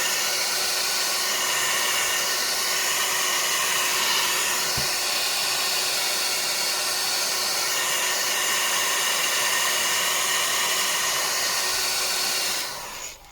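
Hair dryer blowing steadily as it heats a phone's back cover, switched off near the end.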